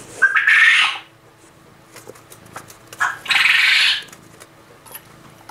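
Male quail calling twice, about three seconds apart: loud, harsh calls just under a second long, each opening with a short pitched note.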